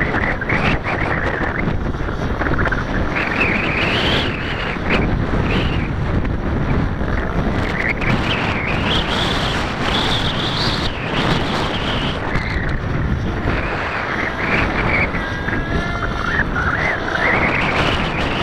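Heavy wind buffeting the microphone, with the distant whine of an electric SAB Goblin 770 Competition RC helicopter rising and falling in pitch as it flies.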